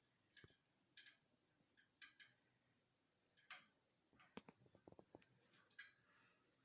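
Near silence with faint, scattered clicks and light taps, a few spaced out over the first half and a quicker cluster around the middle.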